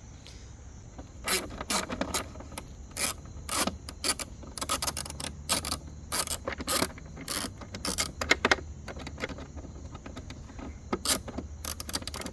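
Hand ratchet wrench clicking in irregular runs as bracket bolts are backed out, with sharp metallic clicks coming in clusters and a pause about three quarters of the way through.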